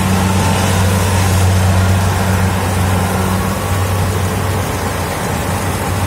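Kubota DC70 rice combine harvester running steadily, its engine giving a constant low hum under an even mechanical noise.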